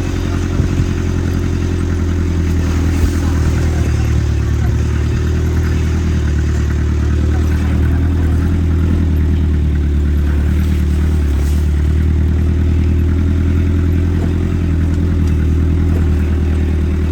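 A vehicle engine running steadily while driving off-road: a constant low drone, with a few short knocks and rattles in the first few seconds.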